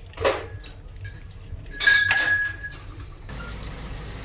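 Metal parts or tools clinking together twice, the second strike ringing briefly. A steady low hum takes over abruptly near the end.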